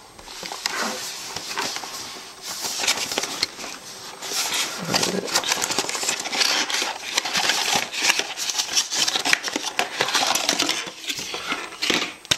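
Cardboard box and clear plastic packaging being handled and opened: continuous crinkling, scraping and small clicks as the plastic insert is lifted out.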